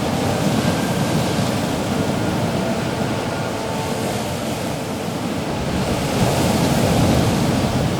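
Sea waves and wind, a steady rushing noise that swells a little about six seconds in.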